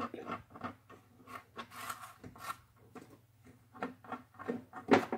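Blue painter's tape being peeled off a cardboard weaving loom, with the cardboard and yarn handled: a run of short, irregular rips and rustles, one louder near the end.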